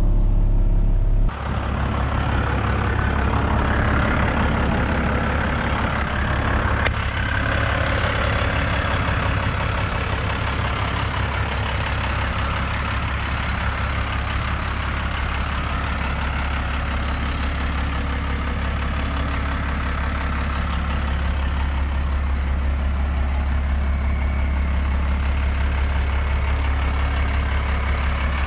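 First-generation Dodge Ram's Cummins inline-six turbo-diesel engine running steadily with a low drone. About a second in, its note steps up to a higher pitch and then holds.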